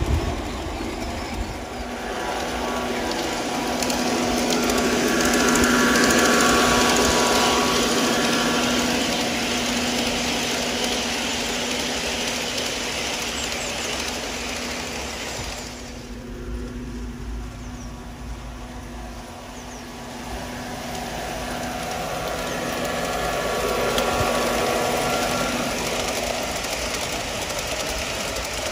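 G scale model train running on garden track, a steady motor hum over wheel noise. It grows louder as it passes close about six seconds in, dulls and fades briefly in the middle, and swells again near the end.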